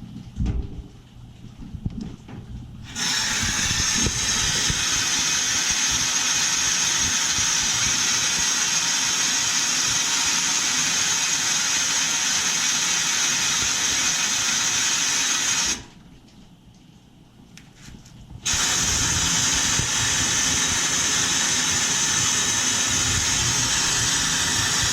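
Compressed air hissing steadily into a drained water heater tank to pressure-test a freshly soldered leak. It runs in two long stretches, cut off for about two and a half seconds in between.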